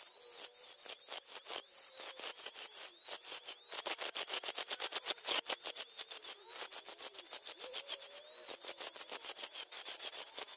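Small handheld rotary tool with a ball burr grinding into a sea shell: a high motor whine with a fast, scratchy chatter as the burr cuts, the pitch wavering as it bites.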